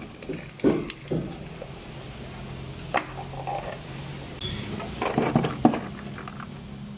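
Boiled jengkol (dogfruit) slices sliding and tumbling out of an aluminium pot into a plastic colander, with knocks of the pot against the colander. A few separate knocks come early on the tipping, then a dense run of clattering thuds about five seconds in as the bulk of the slices drops out.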